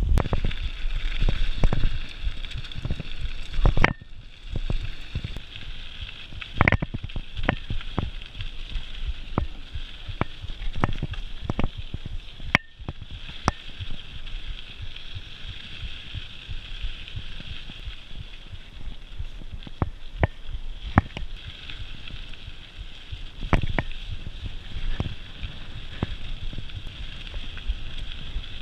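Mountain bike riding down a dirt trail: steady tyre noise with frequent irregular knocks and rattles from the bike jolting over bumps. Wind rumbles on the microphone for the first second or two.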